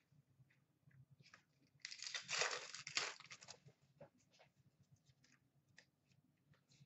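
A foil trading-card pack wrapper torn open with a crinkling rip lasting about a second and a half, starting about two seconds in. It is followed by faint clicks and taps of cards being handled.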